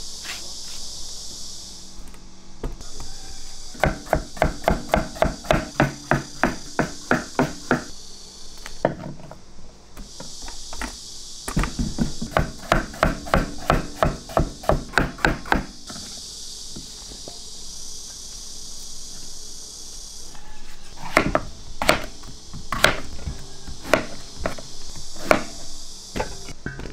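Two runs of rapid chopping strikes, about five a second, each lasting about four seconds, followed by a few slower single strikes, like a knife chopping on a cutting board. A steady high insect buzz comes and goes behind them.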